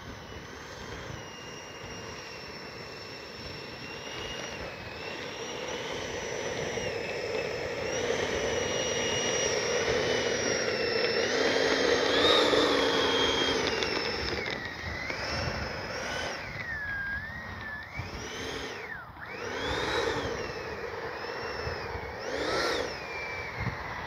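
Electric ducted fan of an E-flite F-16 Thunderbirds 80mm EDF jet whining as the model rolls down the runway, loudest about halfway through as it passes close. In the second half the fan pitch rises and falls several times with the throttle as it taxis.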